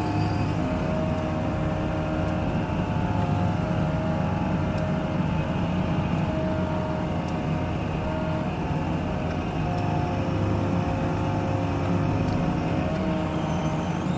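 Hydraulic excavator's diesel engine running steadily as the boom and bucket work, a constant low hum with a steady whine above it.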